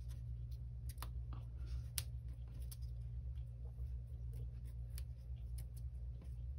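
Fingernails picking and tapping at the edge of a glossy paper liner on an adhesive foam sheet, giving a few scattered light clicks and paper ticks, about one a second, over a steady low hum.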